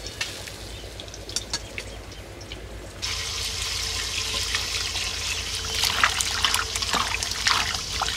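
After a few faint clicks, water starts pouring from a steel vessel into a steel bowl of cut radish and potato pieces about three seconds in. Near the end a hand swishes and rubs the pieces in the water, making louder splashes.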